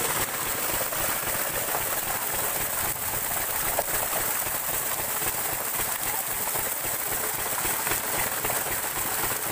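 A diesel-driven irrigation pump set at work: a steady rush of water gushing from the pump's outlet pipe into a concrete tank, over the steady running of the stationary diesel engine.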